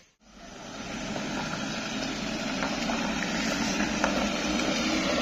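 A light truck's engine running as it climbs a muddy dirt track, fading in just after the start and growing slowly louder as it approaches.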